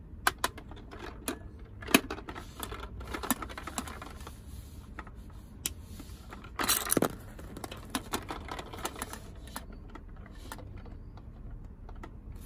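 Pink plastic toy vending machine being handled and turned around, its hard plastic casing giving irregular clicks and knocks, with a louder clatter about seven seconds in.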